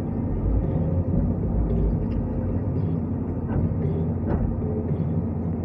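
New Holland Kobelco 215 excavator's diesel engine running steadily, with two light knocks a little past the middle.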